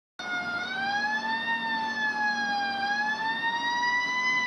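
Fire truck siren wailing in one unbroken tone that slowly wavers up and down in pitch, over a faint steady low hum.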